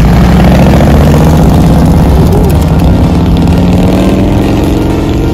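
Cruiser-style motorcycle engine running loud as the bike passes close, its note rising near the end as it accelerates away.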